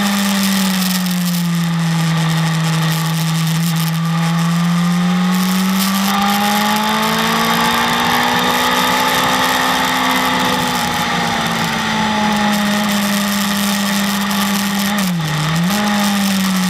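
BMW S1000RR's inline-four engine running hard on track, its pitch sagging and then swelling slowly with the throttle, with a quick dip in revs and recovery near the end. A steady rushing hiss runs under it.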